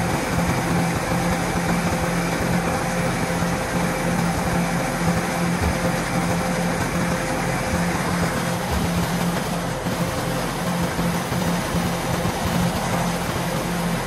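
DC105 rice combine harvester running, a steady engine-and-machinery drone with a constant low hum, turning a little duller after about eight seconds.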